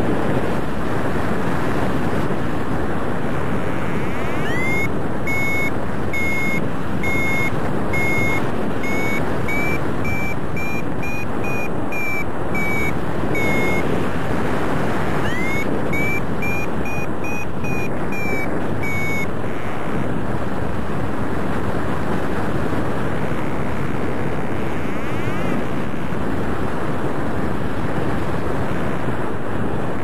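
Steady wind rushing over the microphone in paraglider flight. Over it a paragliding variometer beeps in short, quick high beeps with a slight rise in pitch, for about nine seconds, then again for about four seconds after a short gap: its climb tone, the sign that the glider is rising.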